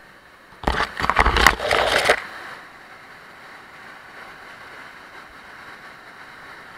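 Inflatable raft crashing through a whitewater drop: a loud splash of water breaking over the bow for about a second and a half, then the steady rush of the rapid.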